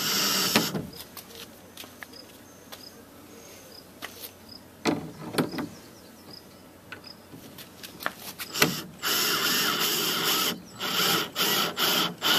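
Power drill pre-drilling screw holes. It runs and stops about half a second in, followed by light clicks and knocks of handling, then from about nine seconds in it runs again in several short bursts with brief pauses.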